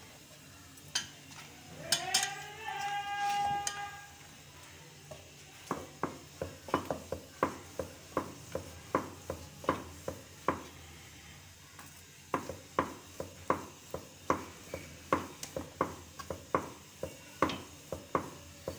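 Wooden rolling pin knocking and clicking against a wooden rolling board as paratha dough is rolled out. The knocks come in a quick rhythm of about two to three a second, starting about six seconds in, with a short break near the middle. About two seconds in there is a brief pitched tone that rises and then holds.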